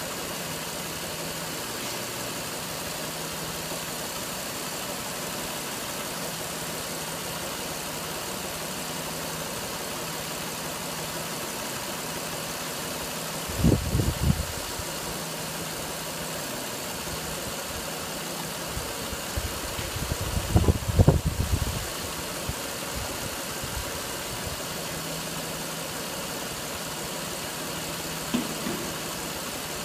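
Car engine idling steadily, left running during a power-steering fluid change. There are two short spells of knocking and clatter, one about halfway through and another some seconds later.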